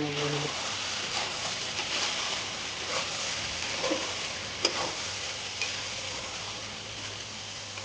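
Chicken curry sizzling in hot oil in a pan while it is stirred, with a spoon clicking against the pan now and then; the sharpest click comes about four and a half seconds in.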